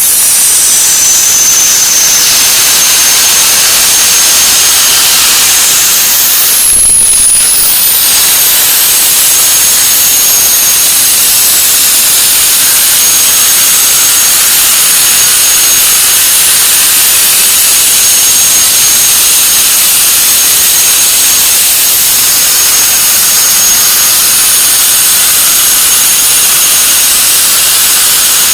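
CNC plasma torch cutting through 50 mm steel plate: a loud, steady hiss with a thin high whine over it, which wavers briefly about seven seconds in.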